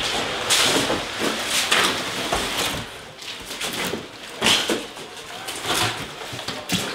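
Burned wooden shelving and boards being dragged, scraped and knocked about, in irregular clattering bursts.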